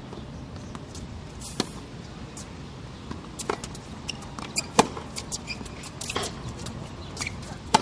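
Tennis ball struck by rackets and bouncing on a hard court during a rally. Loud sharp hits come about every one and a half seconds, with fainter bounces and clicks between them, over a low steady background hum.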